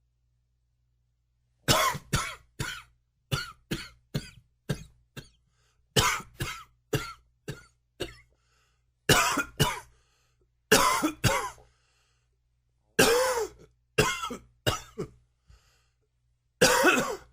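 A man in a coughing fit: harsh coughs in quick runs of two to five, with short pauses between the runs, starting a couple of seconds in.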